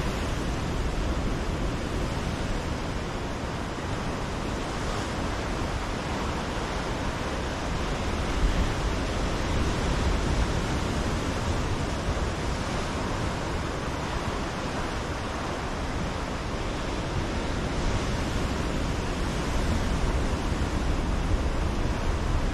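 Ocean surf breaking on a rocky shoreline: a steady rushing wash that swells a little about nine seconds in and again near the end, over a low rumble.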